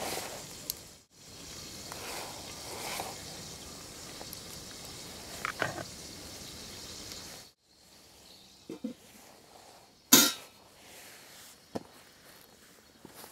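Food sizzling steadily in a pot over a Swedish log fire, cut off abruptly. Then a few light clicks and one sharp clatter of utensils or dishes about ten seconds in.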